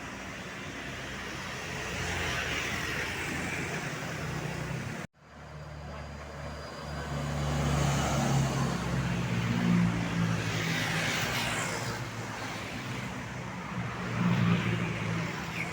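Road traffic with vehicles passing by, engine rumble swelling as they go past. The sound cuts out abruptly for an instant about five seconds in, then picks up again.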